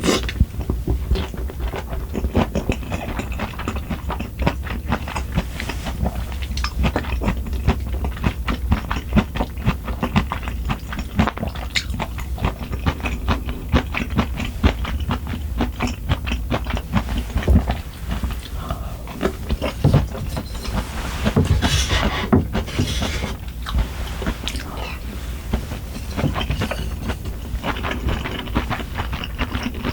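Close-miked eating: chewing and biting food with a steady run of short, wet mouth clicks, and a louder noisy stretch about two-thirds of the way through.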